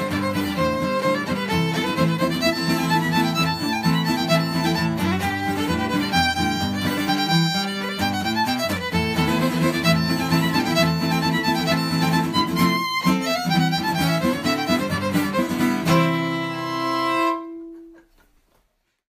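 Acoustic fiddle playing a fast reel with guitar accompaniment, ending on a final held note and chord about sixteen seconds in that stops and dies away into silence.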